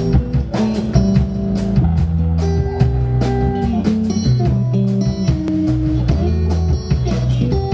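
Live band playing an instrumental through a PA: electric guitar notes over electric bass guitar and a drum kit keeping a steady beat.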